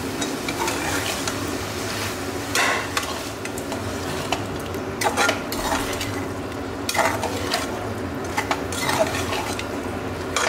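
Metal slotted spatula stirring and scraping spice-coated mutton pieces around an aluminium pressure cooker pan, with irregular scrapes every second or two. Under the stirring the meat and masala sizzle steadily in oil.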